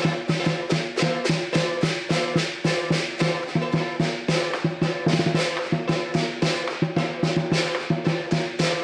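Southern lion dance percussion: a big lion drum beating a quick, steady rhythm, with crashing cymbals and a ringing gong.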